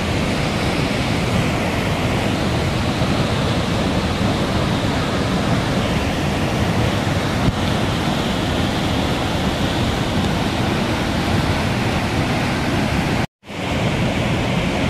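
Steady rushing of a muddy waterfall in flood, water pouring over a rock cliff, with wind buffeting the microphone. It cuts out to silence for a moment about 13 seconds in, then resumes.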